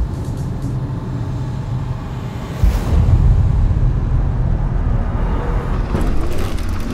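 A deep, steady rumbling drone from the film's sci-fi sound design that swells louder about three seconds in. A wavering tone rises and falls near the end.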